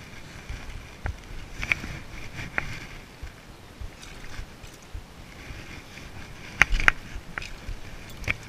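Low, uneven rumble of handling and rustle on a body-worn GoPro's microphone, with a few short, sharp clicks scattered through, two of them close together about two-thirds of the way in.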